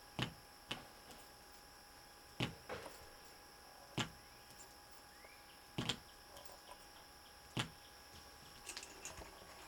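Pancake coil being switched on and off under a hanging magnet: about seven sharp, irregular knocks, some in quick pairs, as the coil jumps up toward the magnet and drops back onto the metal can.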